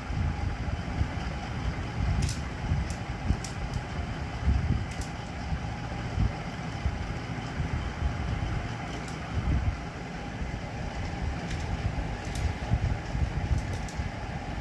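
Scattered plastic clicks of a Pyraminx puzzle being turned by hand, over a steady low rumble.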